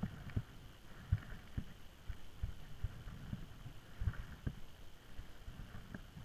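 Irregular dull low thumps, a few each second, with a faint rustle: handling bumps on a head-mounted action camera as fly line is stripped in by hand.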